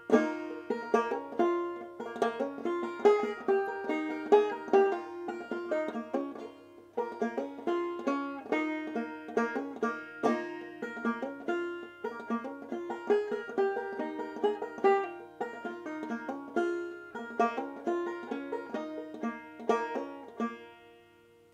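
Solo banjo, plucked notes in a steady rhythm, playing an instrumental passage of an English folk song tune. It ends near the end on a last chord that rings out and fades.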